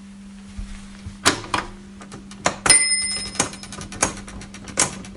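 Typewriter keys clacking in irregular strokes, with a small bell ding about two and a half seconds in, over a steady low hum.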